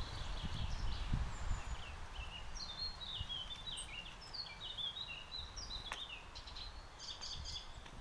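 Small songbirds chirping and twittering: a run of quick, falling chirps in the middle and a short burst near the end. Low rumbling thumps sound in the first second and a half, and there is a single sharp click about six seconds in.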